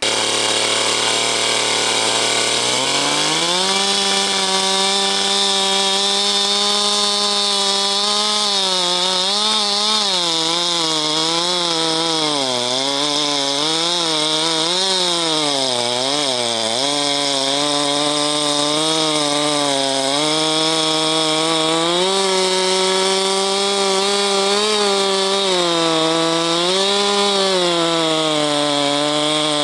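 Husqvarna 390XP two-stroke chainsaw with a 37-inch bar cutting slabs from a pine stump. The engine climbs to high revs over the first few seconds, then repeatedly bogs down and recovers under the load of the cut, most deeply about halfway through.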